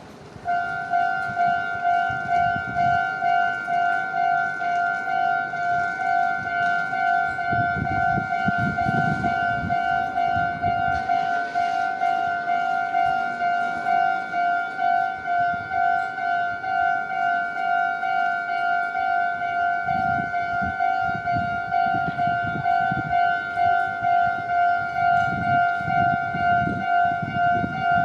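Japanese railway level-crossing alarm ringing its electronic "kan-kan" bell tone. It sets in about half a second in and repeats in an even, rapid pulse at a steady pitch. Low rumbling comes and goes beneath it, around eight seconds in and again from about twenty seconds.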